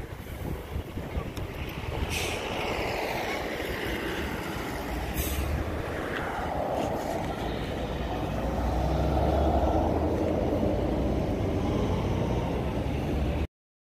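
Road traffic with trucks driving past, a steady rumble of engines and tyres with falling whines as vehicles go by. A heavier low rumble builds about halfway through, and the sound cuts off abruptly near the end.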